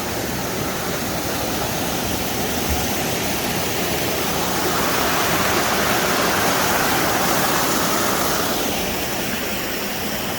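A stream rushing over rocks, a steady loud flow that swells for a few seconds in the middle.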